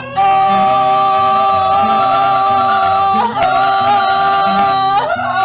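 A man sings long held notes over a strummed acoustic guitar, the final drawn-out lines of a gaucho-style folk song. There are three sustained notes, the first lasting about three seconds.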